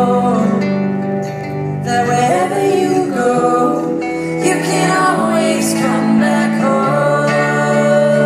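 Live acoustic band music: acoustic guitar with cello and keyboard, and singing that rises and falls in long held notes.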